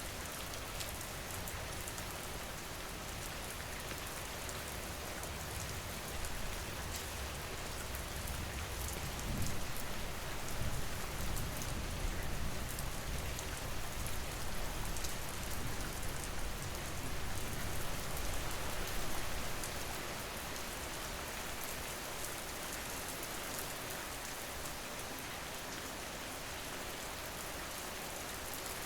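Steady rain, with fine drops pattering throughout. A low rumble swells up about six seconds in, stays for about fourteen seconds, then fades back under the rain.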